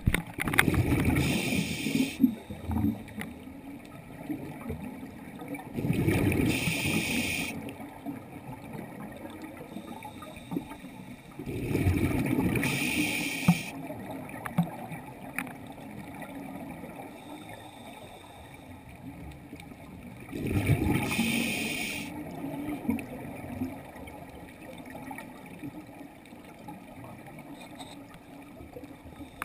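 Muffled water noise heard from inside an underwater camera housing. The water rushes and swells four times, several seconds apart, with a steady low rumble in between.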